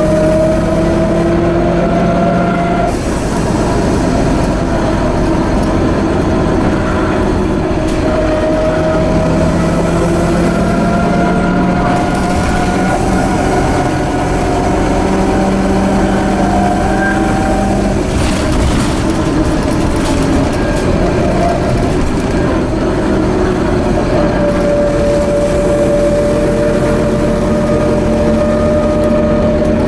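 Scania OmniCity 12 m single-deck bus (Scania DC9 engine) under way, heard from inside the saloon: a low drivetrain rumble with a whine that rises and falls in pitch with road speed, coming from the bus's broken differential.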